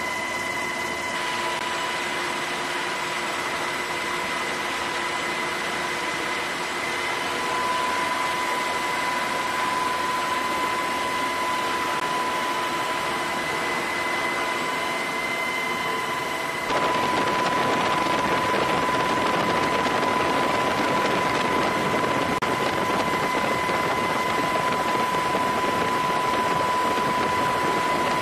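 Helicopter cabin noise: a steady wash of rotor and engine noise with a constant high whine. About two-thirds of the way through it suddenly turns louder and harsher.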